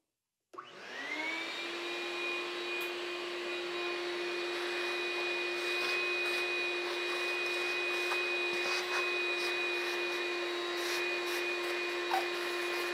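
Shop vacuum switched on, its motor spinning up about half a second in, then running steadily with a high whine. It is sucking up metal chips from freshly drilled holes in an aluminium cylinder head, with a few faint clicks in the second half.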